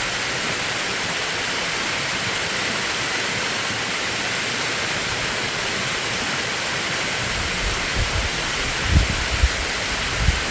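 Mountain valley stream rushing steadily. In the last few seconds low gusts of wind buffet the microphone.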